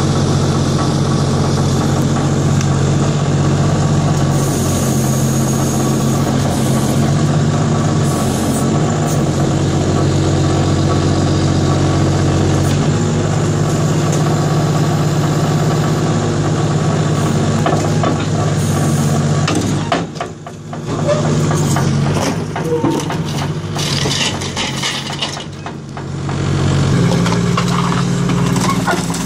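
Diesel engine of an excavator with an orange-peel grapple running steadily, with metal clanks and scraping about two-thirds of the way through as a scrap car is set down into a steel skip. The engine note drops near the end.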